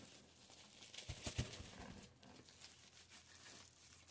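Deco mesh rustling and crinkling as it is scrunched into a poof and twisted into a pipe cleaner on a wreath frame, with a few soft knocks just after a second in.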